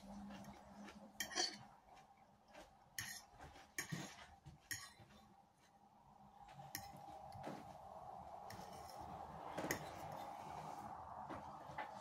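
Metal fork clinking and scraping against a plate as food is speared and picked up, a handful of sharp clinks spread through, the loudest about a second in.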